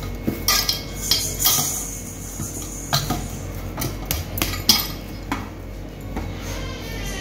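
Samosa dough being worked and set down in a stainless-steel bowl: a string of sharp knocks and clinks of metal, about a dozen spaced irregularly through the seconds.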